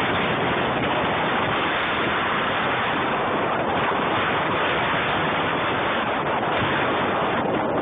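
Steady wind noise on a phone's microphone held out the window of a moving car, a constant loud rush.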